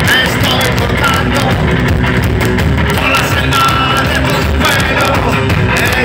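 Live rock band playing loud: a sung lead vocal over bass guitar and drums, heard from the crowd.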